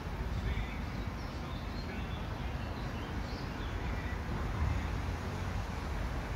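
Low steady rumble of a motor cruiser's engine passing along the river, with small birds chirping faintly over it.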